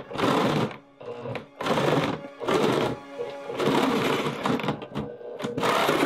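Handheld jigsaw cutting a hole through a plastic icebox lid, the blade running in several short bursts with brief pauses between them. Background music plays underneath.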